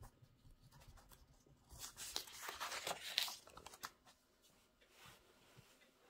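Comic book page being turned: a crinkly paper rustle of about two seconds, with a few faint paper crackles before and after it.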